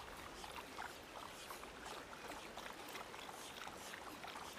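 Shallow stream trickling and babbling over stones, a steady wash of small irregular splashes.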